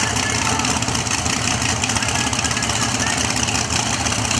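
Drag racing car engine idling steadily, with people talking around it.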